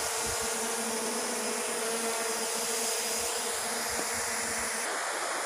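Quadcopter drone hovering, a steady propeller buzz over a constant hiss; the buzz drops away about five seconds in.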